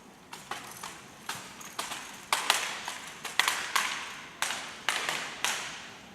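Sharp slaps and knocks of drill rifles being handled in a rifle drill routine, about a dozen at uneven spacing, loudest in the middle.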